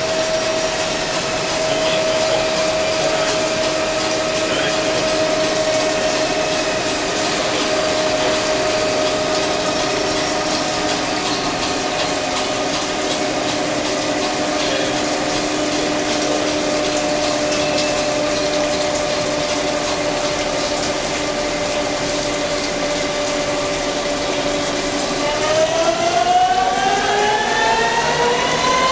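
CNC flat-bed lathe running while machining a part: a steady whine from the machine over a constant hiss. Near the end the whine rises in pitch as the machine speeds up.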